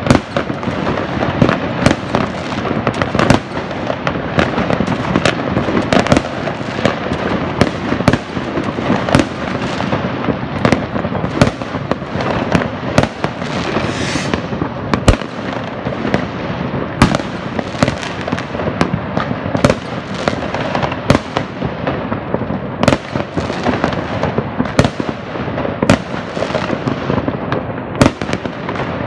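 Many fireworks and firecrackers going off at once from all around: a dense, unbroken crackle with frequent sharp bangs at irregular intervals.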